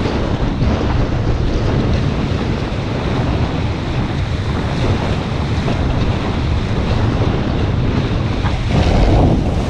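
Wind buffeting the onboard camera's microphone over water rushing along the hulls of a Hobie 16 catamaran under sail. The rush swells briefly near the end.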